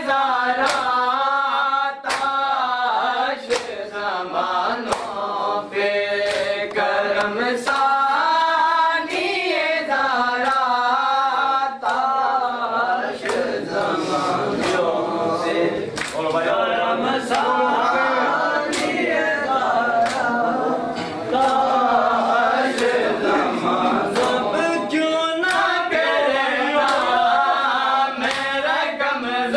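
Male voices chanting a Muharram nauha in unison over rhythmic matam, bare-handed slaps on bare chests, roughly once a second and coming faster in the second half.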